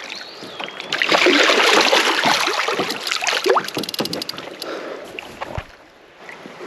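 Creek water splashing and sloshing, loudest from about one to four seconds in and then dying away, with a quick run of fine ticks around three and a half seconds in.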